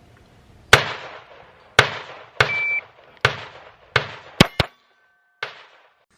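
About eight gunshots, irregularly spaced, two of them close together about two thirds of the way through. A brief high beep sounds right after the third shot.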